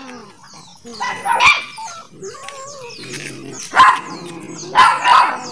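Dog barking in short, loud bursts about a second in, near four seconds and again around five seconds, with birds chirping faintly between barks.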